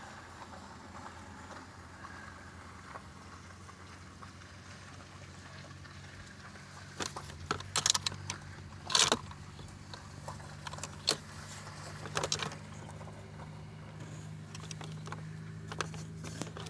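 A steady low hum with a cluster of sharp clicks and knocks between about seven and thirteen seconds in, the loudest two close together near the middle.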